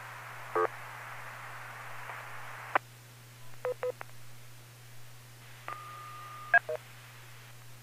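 DTMF touch-tone control tones sent over a ham radio link to command a remote base station: short beeps, then a tone held for under a second near the end, with a sharp click among them. Radio hiss fills the first few seconds and cuts off with a click.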